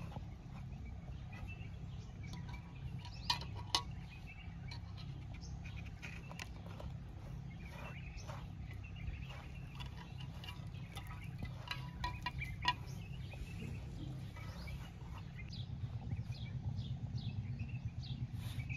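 Hands mixing and kneading donut dough in a stainless steel basin: soft patting and squishing, with a few sharp metal clinks, two about three seconds in and one around the middle. A low steady rumble underneath, and faint bird chirps in the background.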